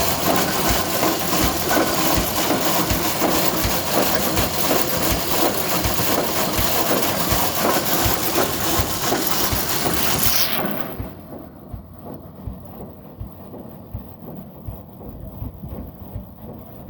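The single-cylinder Blackstone engine of an Aveling-Blackstone road roller running, with a regular low thudding beat over a loud, noisy mechanical clatter. About ten seconds in, the sound suddenly gets quieter and loses most of its hiss, while the low beat carries on.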